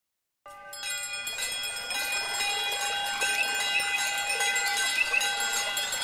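Many bells and chimes ringing together in a sustained shimmer, starting about half a second in after silence.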